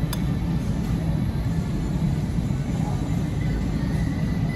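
Café room noise: a steady low rumble with faint indistinct chatter, and a single sharp clink of a metal fork against a plate right at the start.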